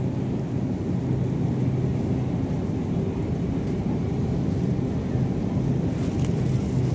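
Steady low hum and rumble of a supermarket's refrigerated meat display case, with a held low tone from its fans and compressor. A few faint clicks near the end.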